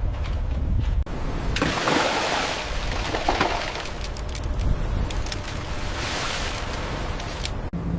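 Seawater rushing and splashing in surges, with a low engine rumble underneath; the sound breaks off abruptly twice.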